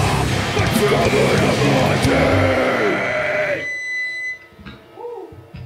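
Metal band playing live, with distorted guitars, bass, drums and a harsh vocal. The song ends about three and a half seconds in, and a single high guitar note rings on for a moment after, followed near the end by a short voice-like call.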